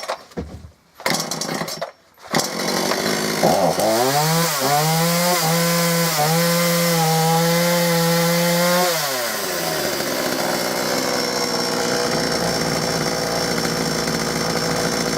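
Gardenline GLPC 41 chainsaw's two-stroke engine running and revving, its pitch dipping and rising a few times, then settling into a rougher, noisier run about nine seconds in. It runs on a freshly cleaned carburetor that the owner thinks still needs a little tuning.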